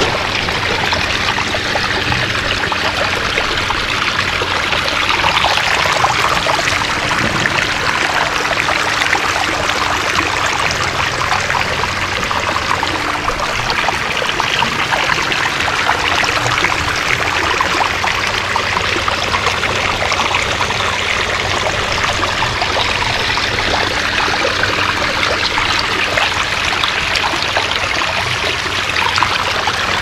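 Pondless waterfall running: water splashing and trickling steadily over stacked boulders and river cobbles.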